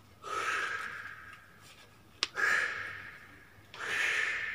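A man breathing hard through push-up repetitions: three forceful exhales about a second and a half apart, each fading away, with a sharp click just before the second.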